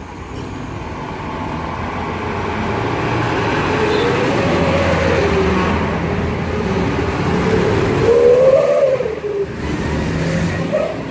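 Diesel trucks driving past one after another, engine note gliding up and down as they pull through, loudest around the middle and again a little before the end.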